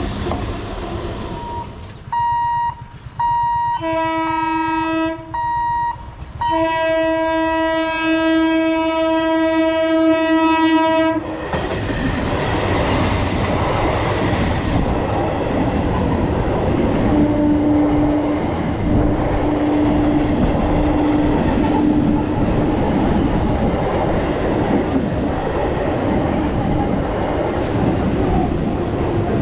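Electric multiple-unit (EMU) local train horn sounding a series of short blasts and then one long blast of about five seconds. About eleven seconds in, the horn stops and the EMU's coaches run past close by with a loud, steady rush of wheels on rails.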